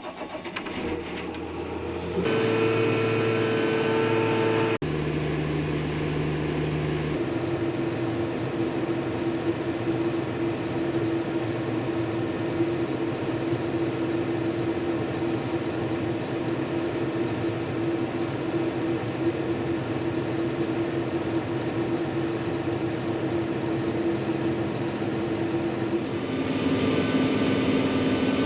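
Truck engine running, heard in several clips cut together, so its tone and pitch jump abruptly a few times: about 2 s in, around 5 and 7 s, and again near the end.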